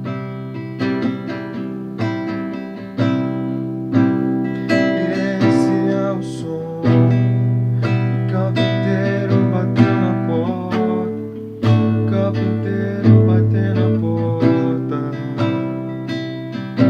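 Acoustic guitar strummed in a steady gospel rhythm, with an accented stroke about once a second, cycling through E minor, D major and C major chords.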